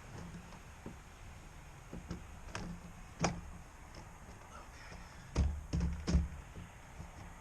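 Scattered knocks and clicks of parts being handled inside a truck door, with one sharper knock a little past three seconds in and a quick run of three louder thumps near the end.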